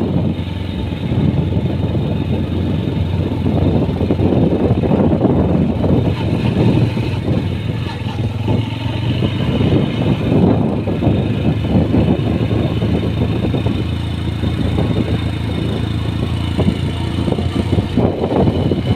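Yamaha motorcycle engine running steadily while riding along a road, with wind rushing over the microphone.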